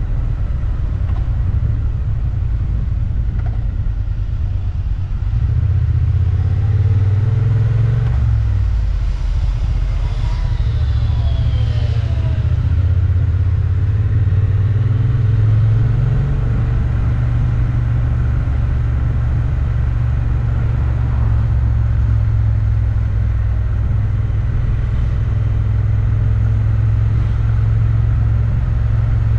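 Motorcycle under way on the road: a steady low engine and road rumble. About ten seconds in, a few brief tones slide up and down in pitch over it.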